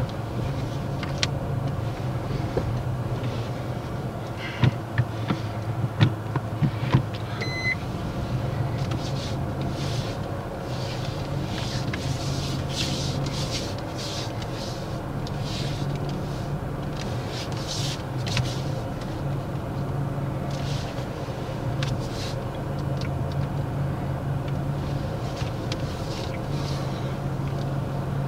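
Car engine idling, heard inside the cabin as a steady low hum, with a few sharp clicks in the first several seconds and a short beep about seven seconds in.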